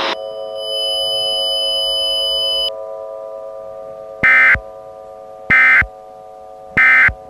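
Mock Emergency Alert System tones: a steady electronic chord of several tones, with a high pair of tones that cuts off a few seconds in. Then come three short, loud, buzzy data bursts about a second and a quarter apart, in the style of the EAS end-of-message code.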